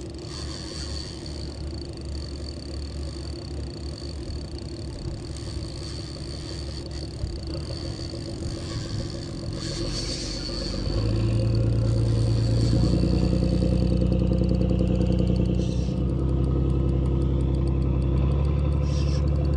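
An engine running steadily. About eleven seconds in it grows louder and its pitch steps up, and it steps up once more a couple of seconds later.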